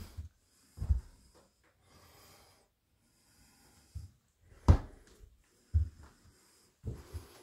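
Scattered low thumps and one sharp knock about two-thirds of the way through, with faint breathy noise between: handling noise and movement of someone carrying a handheld camera around a small room.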